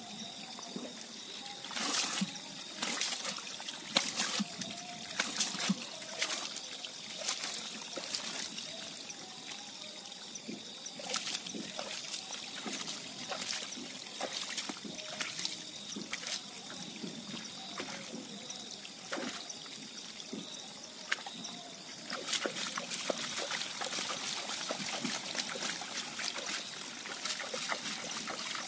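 Hands scooping and splashing water in a small pool while washing up: irregular splashes and trickles as water is cupped and let run back, busier from about two-thirds of the way in.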